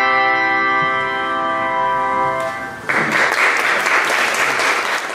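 A handbell choir's final chord rings out and is stopped about two and a half seconds in; the congregation then breaks into applause.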